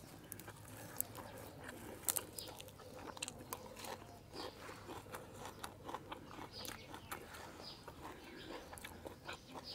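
Mouth sounds of eating: irregular crunches, smacks and clicks of chewing fresh herbs and leafy raw vegetables.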